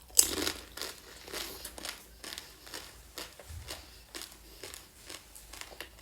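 A crisp fuchka (pani puri) shell cracking loudly as it is bitten just after the start, followed by a run of irregular crunching as it is chewed.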